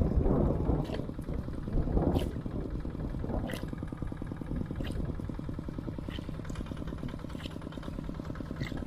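A small engine runs steadily with an even, rapid pulse. Short sharp ticks come through about every second and a half.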